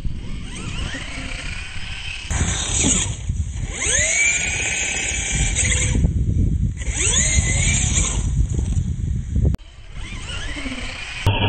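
Losi LMT RC monster truck's brushless electric motor and drivetrain whining, sweeping up in pitch with each burst of throttle, several times, over a rough rumble of the tyres churning sand and gravel.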